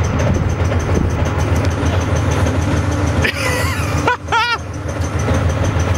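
T-54 tank's V-12 diesel engine idling with a steady low rumble.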